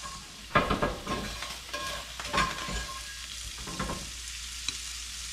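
Eggs scrambling and sizzling in butter in a cast-iron skillet, stirred with a metal utensil. There are several scraping strokes against the pan in the first four seconds, then mostly a steady sizzle.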